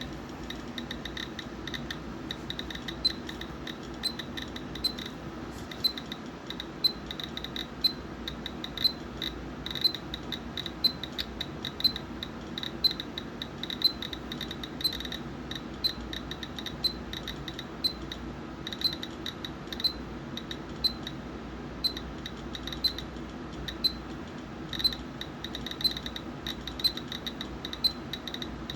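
Geiger counter clicking irregularly, several clicks a second, as it counts radiation from an americium-241 source taken from a smoke detector. A louder tick comes about once a second.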